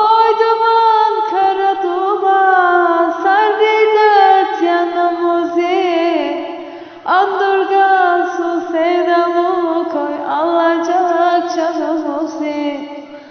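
A solo voice singing a Black Sea Turkish folk song in long, ornamented, wavering held notes. There are two phrases, and the second starts about seven seconds in.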